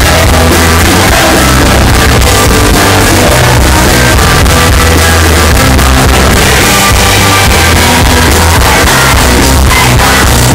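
Live rock band playing loudly, with singing over the full band.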